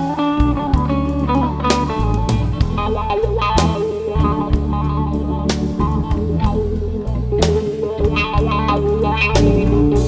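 Blues music with guitar, bass and a drum kit, playing as a soundtrack.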